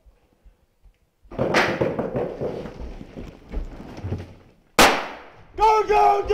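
Two loud bangs echoing in an indoor stairwell, the first about a second in with a long ringing tail, the second sharper and louder just before the end, followed by a high shout.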